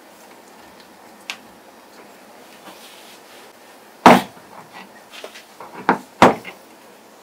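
Glass sauce jar handled on a wooden table: a small click, then a few sharp knocks as the jar is set down and gripped while hands twist at a lid that won't come off. The loudest knock is about four seconds in, with two more a couple of seconds later.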